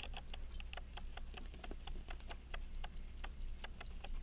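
Elgin pocket watch movement running, its escapement ticking steadily at about five ticks a second.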